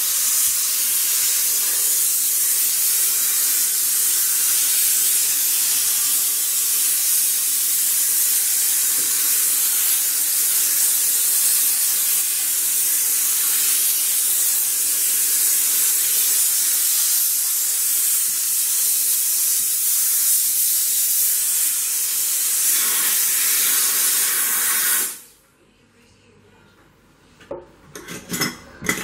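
Sauber Brilliance steam cleaner jetting steam with a loud, steady hiss that cuts off suddenly about four seconds before the end, leaving a few light clicks and knocks.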